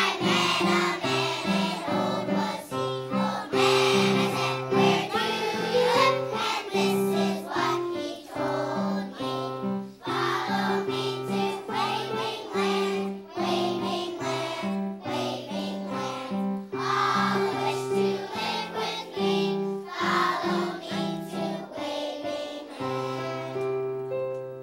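A choir of young children singing a song together in unison over an instrumental accompaniment. Near the end the voices stop and the accompaniment's final chord is held, fading away.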